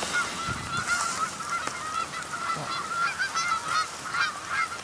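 A flock of geese calling, many short honks overlapping steadily.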